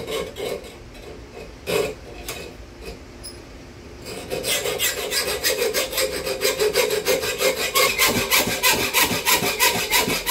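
Hacksaw cutting through chrome-plated metal: a few separate strokes, then from about four seconds in a fast, steady back-and-forth rhythm of sawing strokes.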